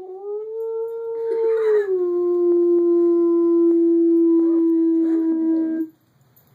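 A dog howling: one long held howl that drops a little in pitch about two seconds in, then holds steady and cuts off abruptly near the end.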